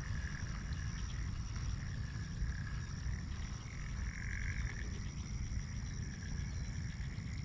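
A frog trilling steadily, rising and falling a little and swelling about halfway through, over a low rumble of wind on the microphone.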